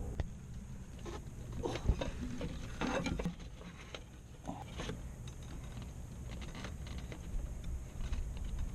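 Scattered light clicks, taps and rustling scrapes at an irregular pace over a low steady rumble: parts and tools being handled by hand.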